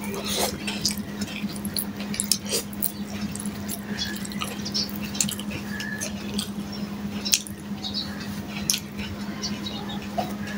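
Close-up eating sounds: chewing and wet mouth smacking over mouthfuls of rice and fried fish eaten by hand, with fingers mixing rice against a steel plate. It comes as many short, sharp clicks, over a steady low hum.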